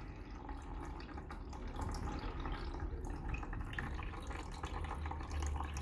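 Old engine coolant trickling in a thin stream from a cut-off plastic bottle, used as a funnel under the radiator, and splashing and dripping into coolant already pooled in a drain pan.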